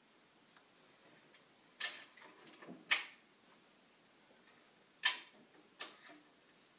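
Hands handling a balsa and plywood model-airplane airframe: four sharp wooden clicks and taps in two pairs, the loudest about three seconds in.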